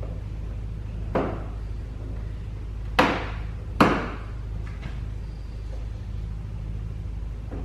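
Three sharp knocks on a car's plastic bumper cover as it is pushed and struck to seat it in its clips, the second and third loudest and close together, over a steady low hum.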